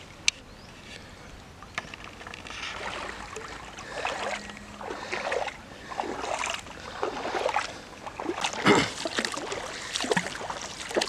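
River water swishing and splashing in irregular surges, about one a second, around a small craft moving on the water. There is a louder thump about nine seconds in.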